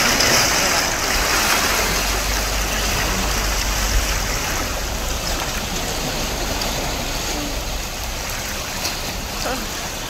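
Sea waves washing on the shore: a steady, even rushing, with a low rumble under it through the middle few seconds.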